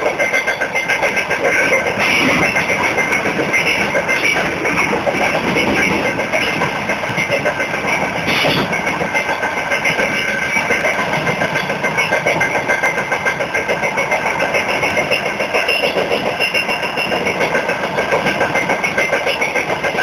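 Freight train wheels rolling and clattering on the rails, heard from aboard the moving train as a loud, steady, unbroken rumble.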